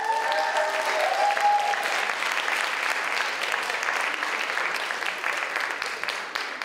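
Audience applauding steadily, with a few cheering voices in the first two seconds.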